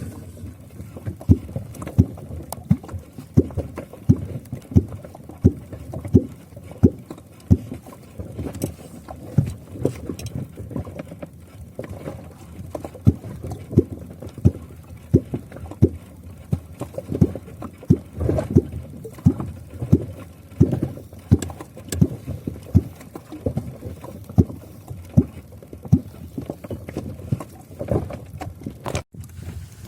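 A kvok (catfish call) struck into the water again and again, making a run of low water plops at about three every two seconds, to draw catfish up to the bait.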